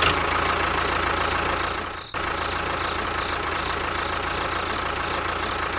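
Engine idling steadily, with a short break about two seconds in.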